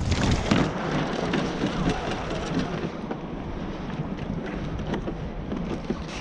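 Water rushing and splashing along the hull and outrigger floats of a Hobie Tandem Island sailing kayak under sail through chop, with wind buffeting the microphone. The spray hiss eases a little about halfway through.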